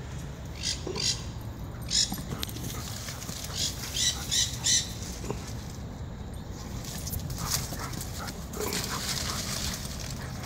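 German Shepherd puppy giving short, sharp, high-pitched barks, singly and then three in quick succession. Near the end comes a rough scratching of a dog's paws digging in dirt.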